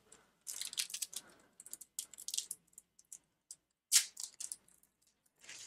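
Foil wrapper of a Pokémon trading card booster pack crinkling and rustling in the hands as it is handled, in short irregular crackles, with one sharper, louder crackle about four seconds in.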